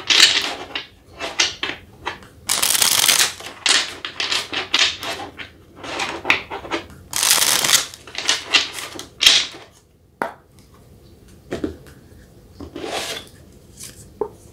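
A deck of tarot cards being shuffled by hand: a run of quick, scratchy shuffling strokes for about nine seconds, then a few soft taps as the shuffling stops.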